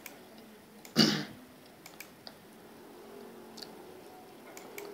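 A person clearing their throat once, short and loud, about a second in. Faint computer mouse clicks come now and then.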